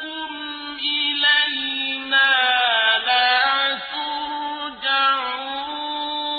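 Arabic Quran recitation: one voice chanting in long held notes with melodic turns, pausing briefly a few times.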